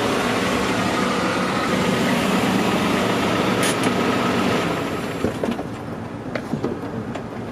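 First-generation Honda Insight's small three-cylinder engine running steadily as the car moves close by, with tyre and road noise. About four and a half seconds in the sound drops away, leaving a lower hum and a few light clicks and ticks.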